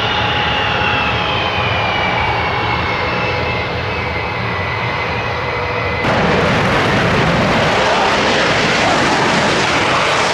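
Sukhoi Su-35 jet engines whining at taxi power, the whine slowly falling in pitch. About six seconds in, this gives way to a louder, steady rush of full-power jet noise as the fighter takes off.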